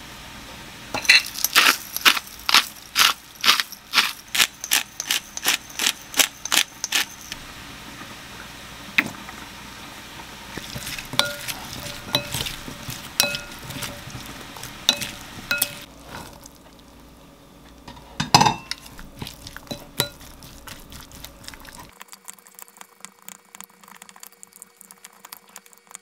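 Wooden utensils tossing salad ingredients in a glass mixing bowl: repeated knocks and clinks on the glass, some with a short ringing tone, and one louder knock. Early on there is a quick regular run of sharp clicks, about two to three a second, as seasoning is added.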